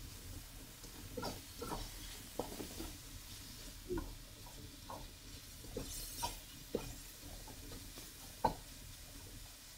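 Slotted spatula scraping and knocking irregularly against a wok as ground meat is stirred and browned, over a faint frying sizzle.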